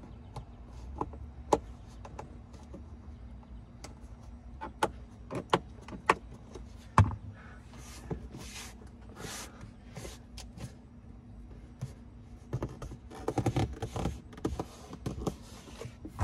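Rubber weather stripping being pressed by hand back over the plastic cargo-area ceiling trim of a car's liftgate opening: scattered sharp clicks and taps of the trim, a few brushing rubs about eight to ten seconds in, and a quick run of knocks in the last few seconds.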